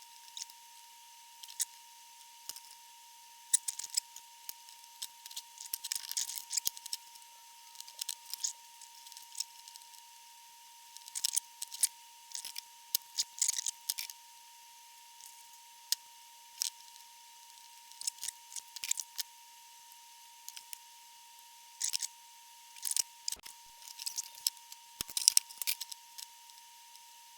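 Small hand tools clicking and snipping in irregular clusters: wire cutters trimming capacitor leads and pliers handling the parts while the amplifier is being recapped.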